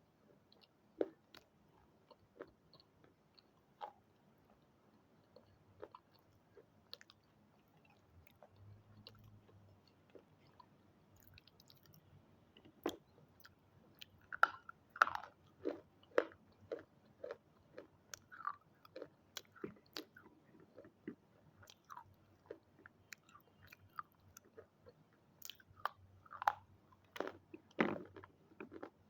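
Close-up crunching and chewing of hard, brittle red triangle pieces. Sparse single cracks at first, then denser runs of bites and crunches about halfway through and again near the end.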